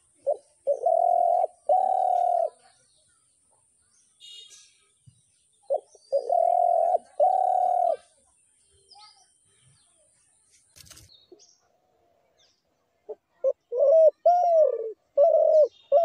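A dove cooing. A short note is followed by two long, low coos, and the phrase repeats about five seconds later. Near the end comes a quicker run of shorter, arching coos. Faint chirps of small birds sound between the phrases.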